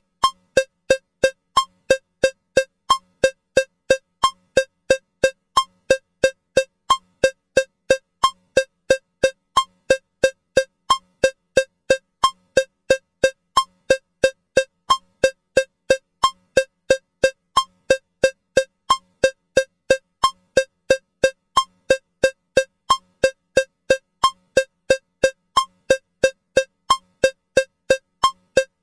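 Metronome ticking with a cowbell sound at 180 beats per minute: short, even, pitched strokes, three a second.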